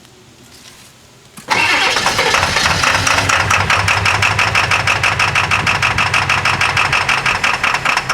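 1997 Ford F-250's 7.3L Power Stroke turbo-diesel V8 being cranked on the starter for a hard cold start: about a second and a half in it starts turning over with a fast, even beat and keeps cranking without yet running smoothly. The owner puts the hard starting down to bad injectors.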